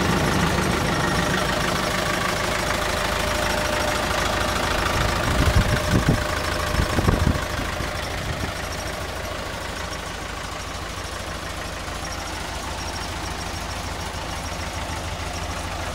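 CAT 3054C four-cylinder diesel idling steadily on a cold start after sitting for years, with a few thumps about six and seven seconds in.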